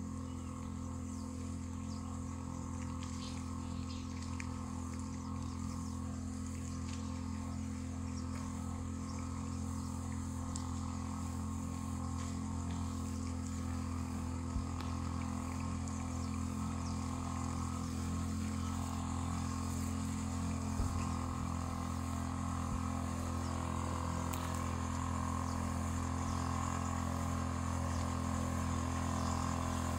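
Motorized knapsack sprayer running steadily while spraying, a continuous even hum that grows slightly louder toward the end.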